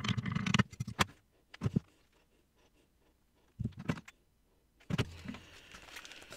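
A stir stick scraping through heated liquid plastisol in a glass measuring cup. This is followed by a few separate sharp clicks and knocks, with quiet gaps between them.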